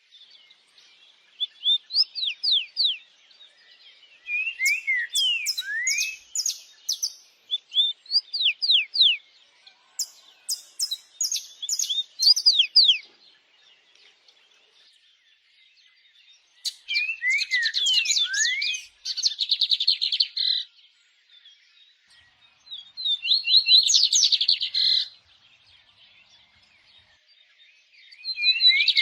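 Songbirds singing in bursts of a few seconds each: quick downward-sweeping whistled notes and fast buzzy trills, with pauses of a few seconds between phrases.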